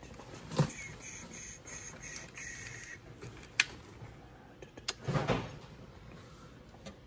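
Toys and small items being handled and set down: a few sharp knocks and clacks and a louder rustling shuffle about five seconds in, with a short run of repeated high-pitched tones about a second in.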